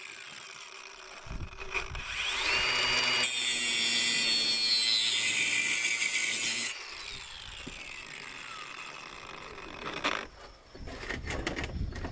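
Ryobi cordless angle grinder with a cutoff wheel spinning up with a rising whine about two and a half seconds in, then cutting into steel tubing for about three and a half seconds before being switched off and whining down. A few knocks follow near the end.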